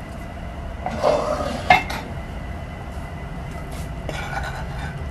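Steel spoon scraping a frying pan as fried mixed vegetables are pushed and tipped out of it into a pot of macaroni, with one sharp metal clink a little under two seconds in and lighter scraping near the end.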